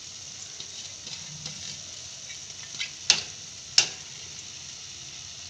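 Summer squash sabzi sizzling softly in a pan on the stove, with a spoon knocking sharply against the pan three times a little past halfway.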